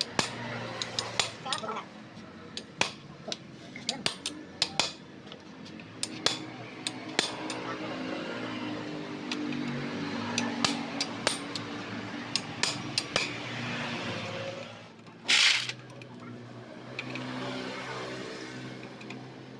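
Wrench clinking against a motorcycle clutch as it works the clutch centre nut: a string of sharp, irregular metallic clinks for the first several seconds, then fewer. A short loud hiss comes about fifteen seconds in.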